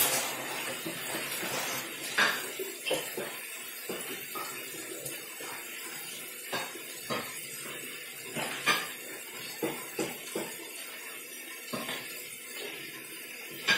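Kitchen clatter: scattered clinks and knocks of utensils and dishes, the loudest right at the start and again about 2 s and 9 s in, over a steady hiss of tuna and mushrooms sautéing in a wok.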